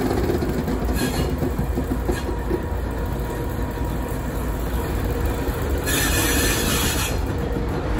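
Class 232 'Ludmilla' diesel locomotive rolling slowly past with its large diesel engine running in a deep, steady rumble. Short bursts of high hiss come about a second in and again between six and seven seconds.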